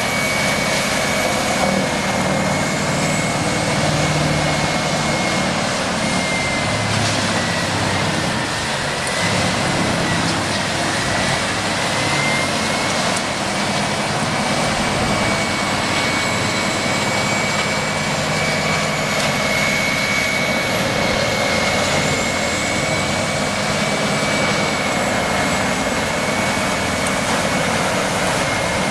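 Heavy machine running steadily under a continuous rushing noise, with a high whine that dips slightly in pitch about ten seconds in and then holds steady.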